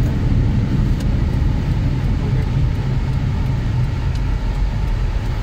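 Steady low road rumble of a car being driven, heard from inside the cabin: engine and tyre noise at a constant pace.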